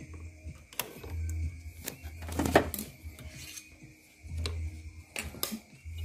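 Clicks, taps and rubbing of hands and a hand tool on a CRT television's circuit board and metal heatsink, with one louder knock about two and a half seconds in. A low hum comes and goes underneath.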